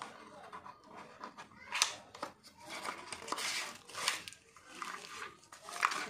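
Small cardboard product box being opened and its contents slid out: uneven rustling and scraping of card and paper packaging, with a couple of sharper snaps about two seconds in and near the end.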